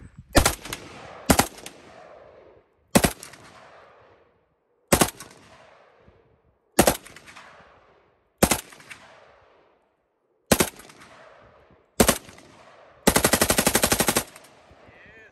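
Fully automatic firearm firing eight short bursts a second or two apart, each ringing out in echo. Near the end comes one sustained burst of about a second at roughly twelve shots a second.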